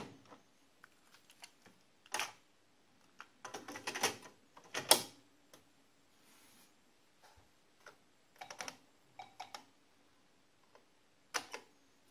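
Plastic clicks and clacks from the Olivetti Prodest PC128's built-in cassette recorder: a sharp key click, then a run of clatter as a tape goes in and the lid shuts. After that come spaced keystrokes on its full-stroke keyboard as LOAD is typed, ending with a single key press near the end.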